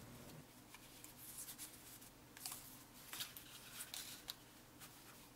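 Faint rustling and scattered light ticks of a folded paper card and paperclip being handled by hand.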